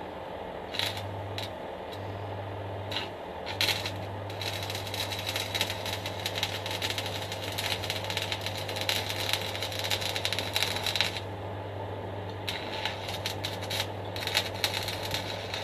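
Stick arc welding with an E6013 electrode: a few short crackles as the arc is struck, then a continuous crackling arc for about seven seconds, a short pause, and another run of crackling for about three seconds. A steady hum from the welding machine runs underneath.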